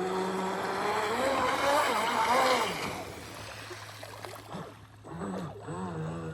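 RC boat's motor running as the boat moves across the water, with a rush of water spray. The motor's pitch shifts up and down as the throttle changes, and the sound is loudest in the first few seconds, dropping away briefly about four to five seconds in.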